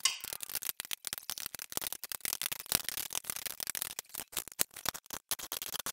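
Kitchen knives chopping cooked broccoli on a hard countertop: a fast, irregular run of sharp knife strikes, several a second, that stops near the end.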